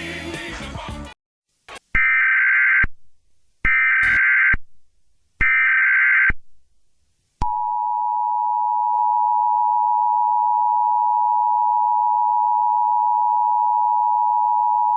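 Emergency Alert System broadcast tones. Three short screeching data bursts of a SAME header, each about a second long and evenly spaced, are followed about seven seconds in by the EAS attention signal, a loud, steady two-tone beep that holds on.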